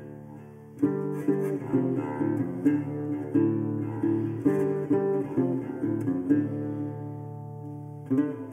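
Background music: acoustic guitar picking a melody, with a new phrase starting a little under a second in.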